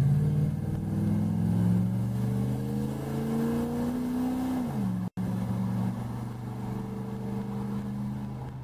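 Chevy 350 small-block V8 with a four-barrel carburettor and dual exhaust, accelerating under throttle: its pitch climbs steadily, then falls sharply about halfway through and settles to a steady run.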